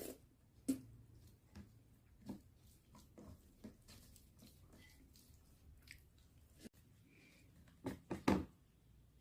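Faint eating sounds: scattered chewing and mouth clicks, with a sharp knock about a second in and a quick cluster of louder knocks near the end.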